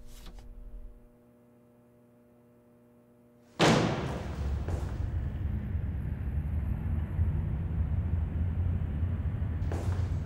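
A faint steady hum, then a sudden loud boom about three and a half seconds in, followed by a steady low rumble.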